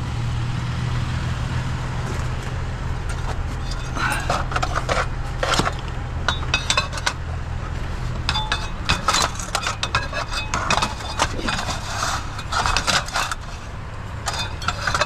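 Metal scrap pieces being handled, clinking and clanking in quick irregular knocks from about four seconds in, over a steady low hum.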